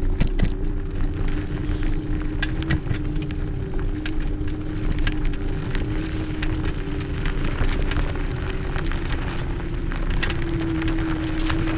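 Segway Ninebot Max G30D electric kick scooter rolling over a gravel path: a constant low rumble and many sharp clicks and crackles from the tyres on loose stones and the rattling frame, over a steady hum that shifts slightly in pitch a few times.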